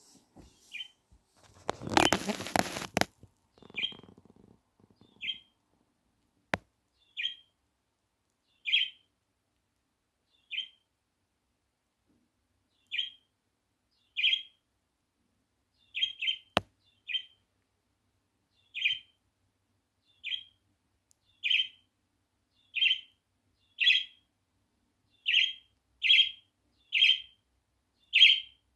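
A bird giving short single chirps over and over, spaced a second or two apart at first and coming faster near the end. About two seconds in there is a loud burst of noise, and later two sharp clicks.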